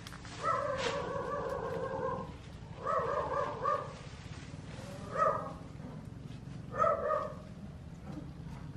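A monkey calling four times in high, wavering tones: one long call, a shorter wavering one, then two brief calls.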